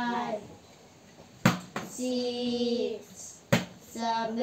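A plastic water bottle is flipped and lands on a hard floor twice, each landing a sharp clack, about two seconds apart. A child's voice holds a drawn-out sung note between the landings and again near the end.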